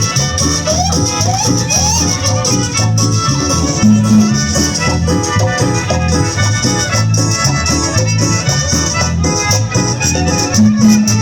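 Instrumental break of a cumbia: a steady pulsing bass line under melody instruments, with a constant high percussion rattle on top.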